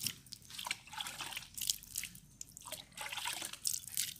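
Water poured by hand into the mouth of a glass bottle, spilling and splashing over it onto concrete, in a run of irregular splashes and drips.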